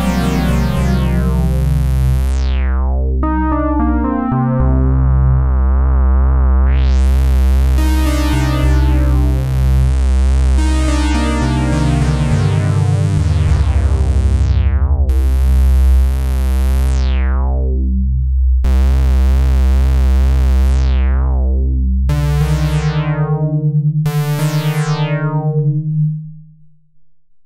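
Roland Juno-106-model polysynth playing a pulse-width-modulation patch: sustained chords over a low bass note, the tone brightening and darkening, with shorter notes near the end before the sound stops.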